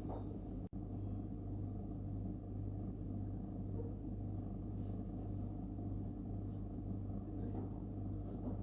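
Steady low hum of a small motor or appliance running, with a few faint light ticks.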